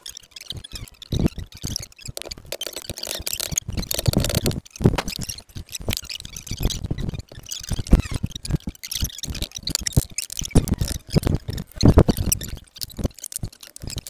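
Green casting sand being packed into a wooden mould box, pressed in by hand and stamped down with a boot: a run of irregular gritty crunches and dull thuds.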